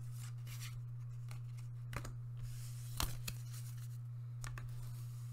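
Trading cards being handled and laid down on a playmat: a few short scrapes and snaps, the loudest about three seconds in, over a steady low hum.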